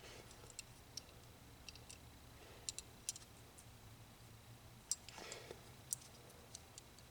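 Faint, scattered small clicks and light handling noise from a grenade-shaped novelty lighter being handled, a few seconds apart.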